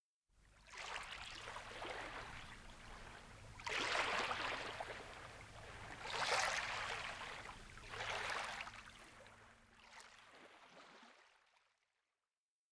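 Rushing water, swelling in four surges about two seconds apart and fading out near the end.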